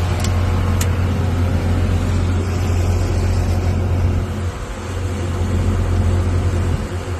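Combine harvester's engine running steadily while the machine stands still, a loud low hum under a broad mechanical rush, with two short clicks in the first second.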